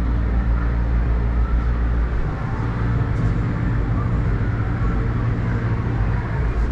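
Ride ambience high up in a Ferris wheel gondola: a steady low rumble with faint, mixed fairground noise underneath.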